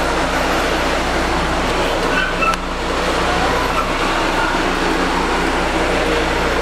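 Steady machine noise: a continuous rushing drone over a low, even hum, with a few faint short high-pitched chirps.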